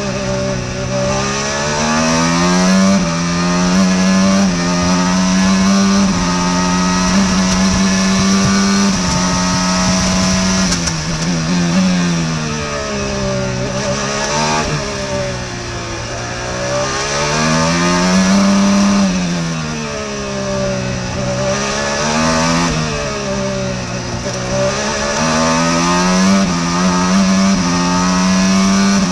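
IndyCar's Honda 2.2-litre twin-turbo V6 at racing speed, heard from the onboard camera. The pitch climbs with each acceleration and steps down through downshifts under braking, several times as the car works through the corners.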